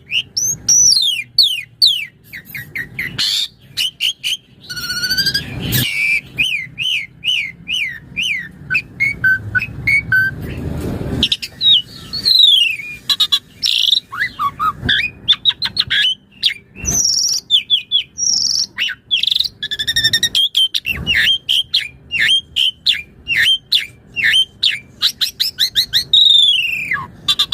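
Asian pied starling (jalak suren) singing in full voice: a fast, unbroken run of varied whistles, chirps, sweeping notes and quick trills, bringing out its repertoire of learned song.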